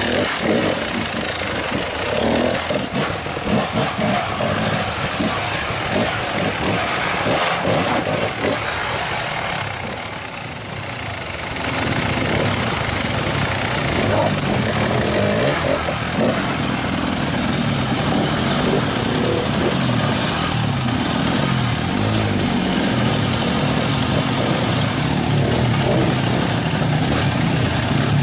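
Off-road trail motorcycle engines running, their pitch rising and falling as they are revved, more clearly in the second half.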